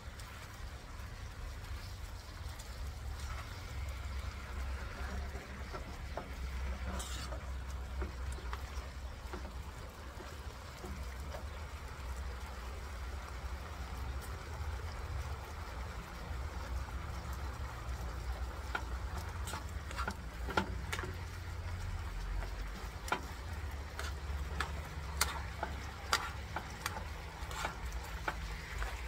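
Chicken tocino sizzling in a frying pan while metal tongs stir it, with sharp clicks and scrapes of the tongs against the pan coming thickest in the second half. A steady low rumble runs underneath.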